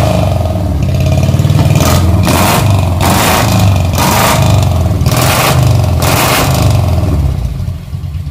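Mitsubishi Colt T120 pickup's four-cylinder engine running through its open exhaust pipes with the muffler tips off, revved in short repeated blips. It drops back toward idle near the end.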